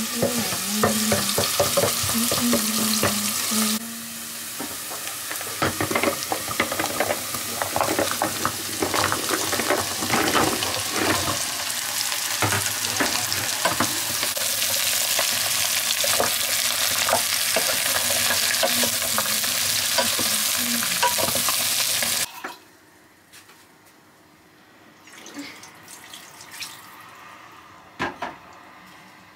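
Food sizzling in a frying pan while a utensil stirs it, clicking and scraping against the pan. The sizzling cuts off suddenly about 22 seconds in, leaving a few quiet clinks.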